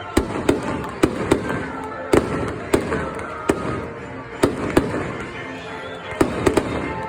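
Fireworks shells bursting in the air: about a dozen sharp bangs at irregular intervals, a few in quick pairs, over music playing in the background.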